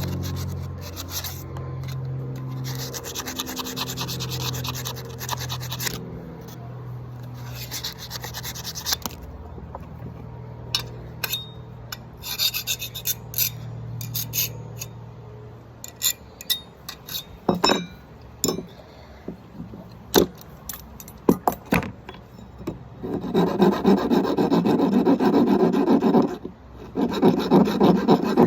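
Hand work on a small cold-forged steel blade: stretches of scraping strokes at first, then a run of sharp, separate metal taps and clinks, and near the end two long loud rasping passes, as of a file on steel.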